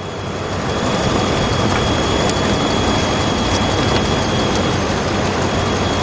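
A 2013 Ram 1500 pickup's engine idling steadily, with a thin, steady high whine over it that fades near the end. The mechanic takes the whine for the alternator whistling as it charges.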